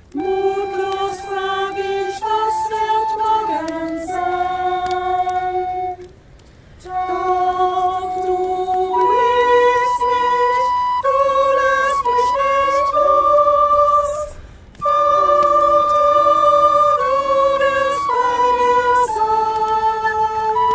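Singing voices holding long, steady notes in slow phrases, with two short breaks between phrases, about six and fourteen seconds in.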